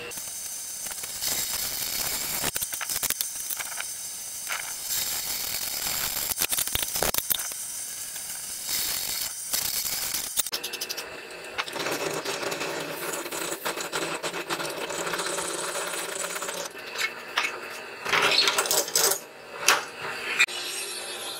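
Drill press boring through a mild steel plate with a stepped drill bit: a harsh, high-pitched cutting noise for about ten seconds, then a lower, steadier machine sound, with a few sharp metal knocks near the end as the plate is shifted on the table.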